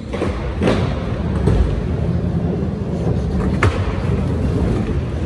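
Skateboard wheels rolling on a smooth concrete floor, a steady low rumble, with two sharp clicks from the boards, one near the start and one past the middle.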